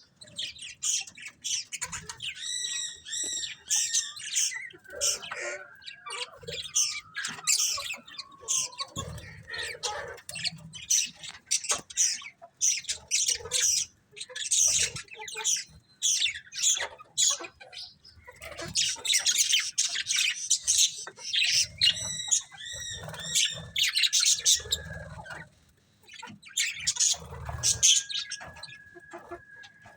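Budgerigars chirping and warbling in continuous chatter, with quick chirps and a few longer, slowly falling whistles.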